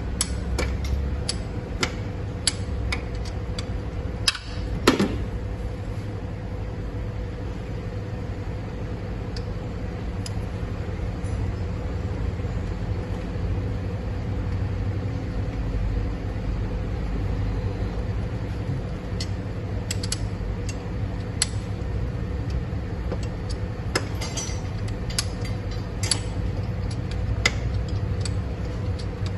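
Steady low machine hum with scattered sharp metallic clicks and knocks from hand tools working on a car engine's belt tensioner, the loudest pair about four to five seconds in.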